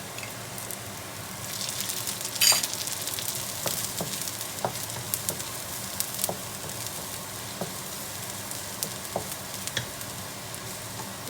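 Oil sizzling steadily in a frying pan as an ingredient browns, with a spatula clicking and scraping against the pan now and then; one louder clack about two and a half seconds in.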